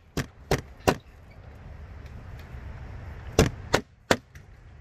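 Large kitchen knife slicing a ginger root on a plastic cutting board: four quick chops in the first second, a pause, then three more near the end. A low steady rumble sits underneath.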